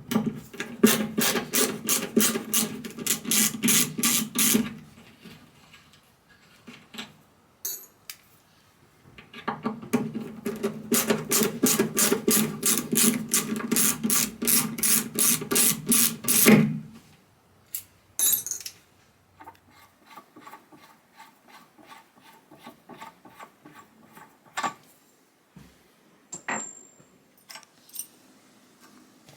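Fast back-and-forth hand strokes rubbing on wood, about four a second, in two long runs. Fainter strokes and a few sharp knocks follow near the end.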